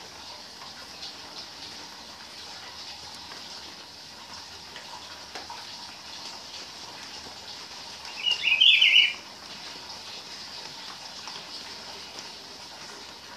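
Caged rufous-browed peppershrike (pitiguari) singing one short song phrase, under a second long, about eight seconds in, over a faint steady high hiss.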